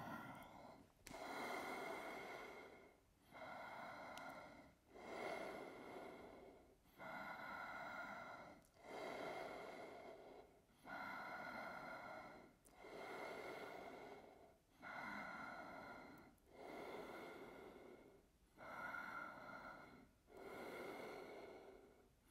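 A person's faint, slow breathing, one hissing breath about every two seconds, inhales and exhales following each other evenly while holding a forearm plank.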